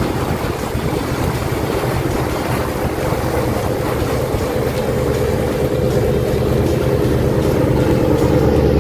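Motorboat engine running steadily, a low hum over water and wind noise, slowly growing louder.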